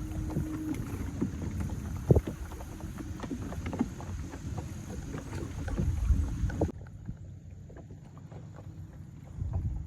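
A small aluminium Jon boat on the water: low, even sloshing with scattered light knocks against the hull, and wind on the microphone. The hiss drops away abruptly about two-thirds of the way through.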